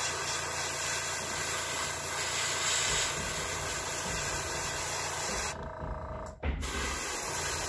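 Airbrush spraying paint as a steady hiss, stopping about five and a half seconds in and spraying again briefly near the end.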